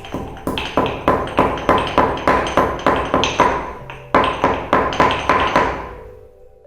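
Peppercorns, cardamom and cumin being crushed in a mortar with a pestle: quick repeated strikes about three a second, each with a short ringing ping. There is a brief pause partway through, and the strikes die away near the end.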